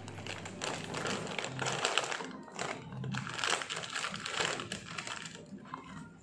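Crinkling and crackling of a plastic snack packet being handled and torn open, thinning out near the end.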